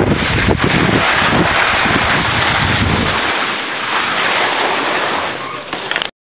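Wind rushing and buffeting over a camera microphone carried by a moving skier. The low buffeting eases a little past three seconds in, and the sound cuts off abruptly near the end.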